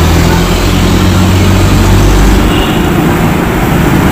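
Honda TMX 125's single-cylinder four-stroke engine running at idle, a low steady hum that breaks up about two and a half seconds in.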